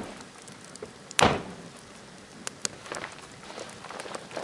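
Wood campfire crackling, with scattered small pops and one loud sharp snap about a second in.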